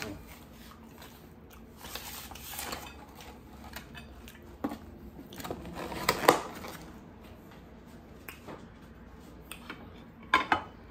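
Takeout food boxes and packaging being handled and set out: low rustling with scattered clicks and knocks, the sharpest about six seconds in and another two near the end.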